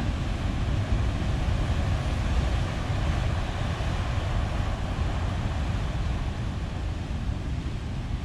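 Heavy storm surf breaking and washing over a rocky shore, a steady roar with a strong low rumble, with wind on the microphone.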